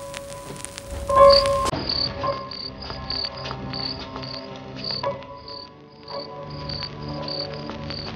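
Crickets chirping in short high chirps, about three a second, starting about two seconds in, over soft low music. Before that a held music note swells and ends.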